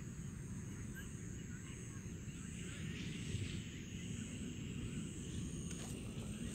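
Outdoor rural ambience: a steady low rumble of wind on the microphone, with a faint, steady high-pitched drone above it.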